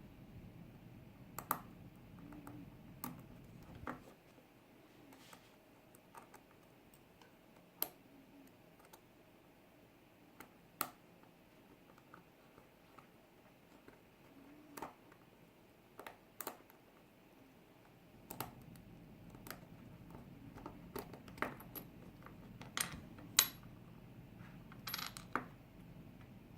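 Irregular sharp metallic clicks and taps of lock picks and tools working in a lock cylinder, with a low handling rumble at times. The loudest click comes a few seconds before the end.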